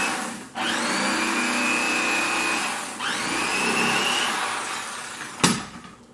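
Corded electric fillet knife running as it cuts through redfish meat, its motor whining steadily. It cuts out and restarts twice, rising in pitch each time it spins back up, then winds down. A single sharp knock comes near the end.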